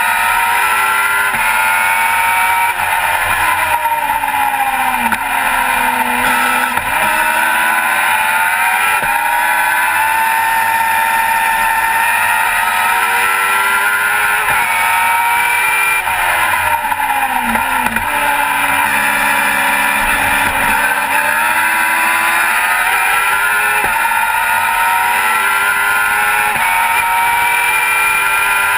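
Race car engine heard from the cockpit, running hard: twice it drops in pitch in steps under braking and downshifts, then climbs back up through the gears on the throttle.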